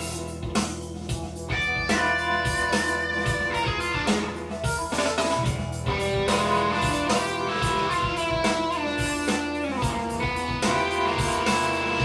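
Recorded music with electric guitar and drums, played back over Dynaudio Excite X14 hi-fi speakers.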